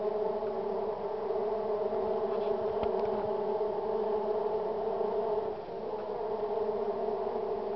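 Manduri stingless bees buzzing in a steady, continuous drone, with a slight dip in loudness about five and a half seconds in.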